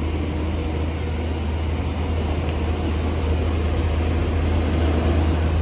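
Tata Hitachi Shinrai backhoe loader's diesel engine running with a steady low drone as the machine drives up carrying a full front bucket of soil, growing a little louder as it comes closer.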